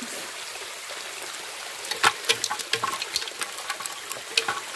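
Shallow stream water running over rocks, with a run of small splashes and sharp clicks starting about two seconds in.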